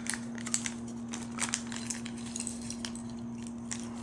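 Plastic Lego minifigure blind bag crinkling as it is opened and handled, with scattered small crackles and clicks.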